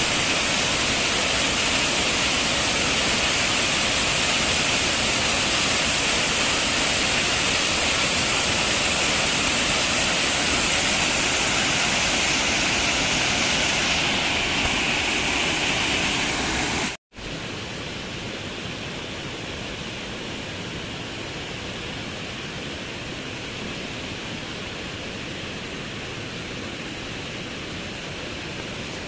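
Waterfall pouring onto rocks and into a pool, a steady loud rush of water. About seventeen seconds in it cuts off for an instant and gives way to a quieter, more distant rush of a small cascade running into a river pool.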